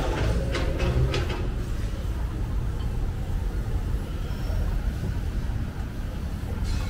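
Street traffic, a steady low rumble of passing motor vehicles, with a few short clatters in the first second and a half.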